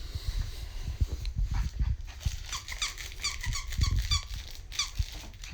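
Squeaky toy squeaking in quick runs of short, high squeaks, mostly in the second half, as corgi puppies chew it, over dull low knocks and bumps.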